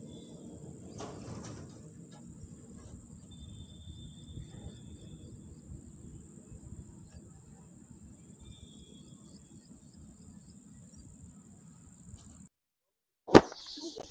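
Low steady outdoor noise with a few faint high chirps while a lit sugar rocket sits on its launch stick. About a second before the end, after a sudden drop to silence, a single loud sharp whoosh comes as the sugar rocket motor flares on the ground in a burst of white smoke.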